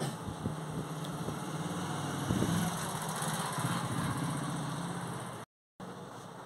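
A small engine running steadily, growing louder through the middle and easing off again, then cut off abruptly near the end.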